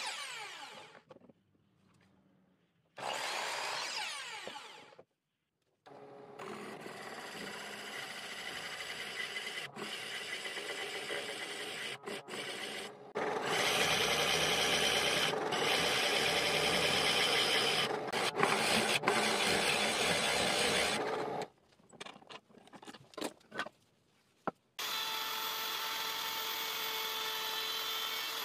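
Electric miter saw cutting wood twice, its blade winding down in falling pitch after each cut; then a drill press boring into a wooden block for about fifteen seconds; after a few short rattles, a table-mounted router running steadily near the end.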